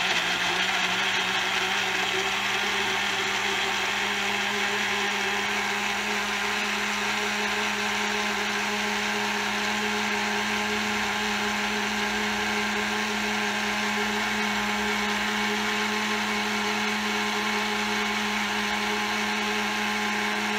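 Chefman personal blender running steadily, blending jackfruit pieces and water into a smoothie. The motor's whine rises slightly in the first few seconds as the fruit breaks down, then holds steady until it shuts off abruptly at the end.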